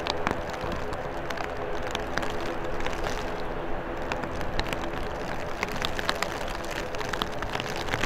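ATR 72-600 turboprop taxiing, its two Pratt & Whitney PW127 engines and propellers running with a steady hum of several held tones. It is mixed with rain noise and scattered sharp ticks of raindrops.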